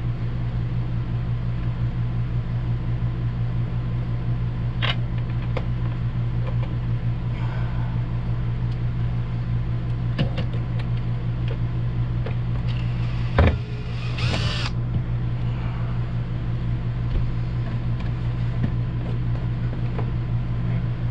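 Scattered clicks and knocks of hand work as the first screw goes into the RV ceiling to hold up a 12-volt fan. A sharp knock comes about 13 seconds in, then a short whirr. Under it all runs a steady low mechanical hum.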